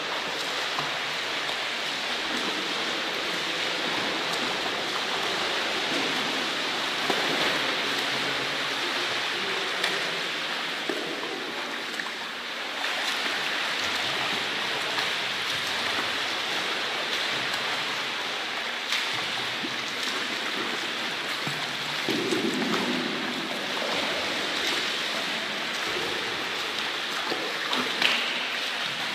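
Steady splashing and rushing water from a child kicking and paddling in an indoor swimming pool.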